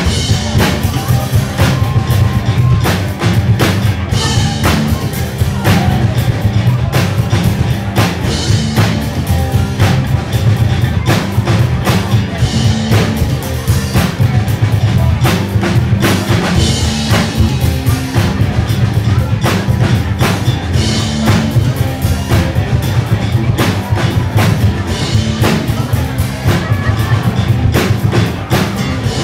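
Rock band playing live: electric guitars over a steady drum-kit beat with a heavy bass drum, loud and continuous.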